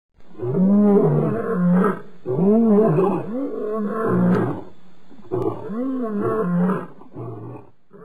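Deep animal roars: a run of long calls, each rising and falling in pitch, growing quieter near the end.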